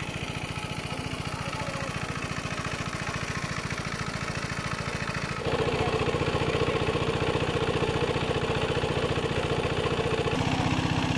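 Small engine-driven water pump running steadily, pumping out the pond through its hose. It gets louder about halfway in.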